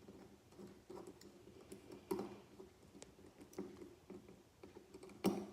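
Small clicks and taps of a folding knife's metal parts and tools being handled during reassembly, with a sharper knock about two seconds in and another near the end.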